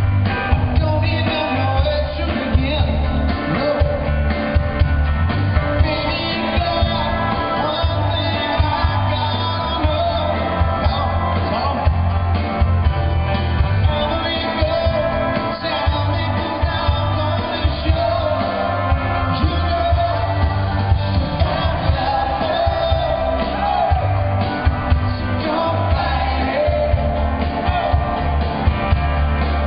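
Live pop band with a male lead singer singing into a microphone, over a steady drum beat, bass and keyboards, recorded from the audience.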